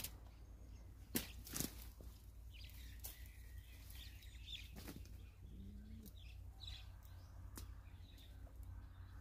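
Faint, scattered sharp snaps and clicks of dry twigs and brush being handled, the loudest about a second and a half in, with a few faint bird chirps.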